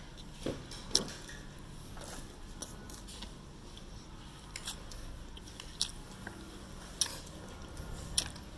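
Eating sounds at a plate: short sharp clicks and taps of chopsticks and a spoon against a ceramic plate, about one a second, with soft chewing, over a faint low hum.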